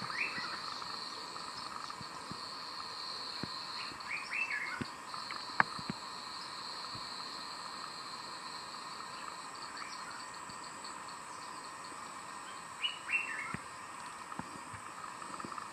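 Bush ambience: a steady insect drone with short bird calls three times, at the start, about four seconds in and near the end. A single sharp click about five and a half seconds in.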